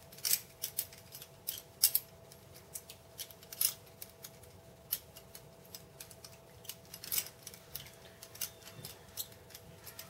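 Balisong being flipped and twirled: a quick, irregular run of light metallic clicks and clacks as the handles swing around the pivots and knock together, a few of them louder.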